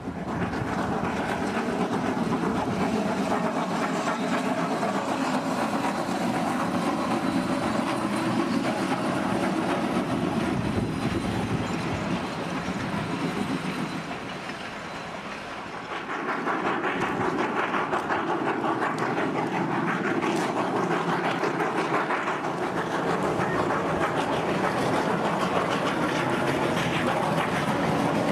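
Steam-hauled freight train of boxcars rolling past, its wheels clicking over the rail joints. The sound drops briefly about halfway through, then picks up again.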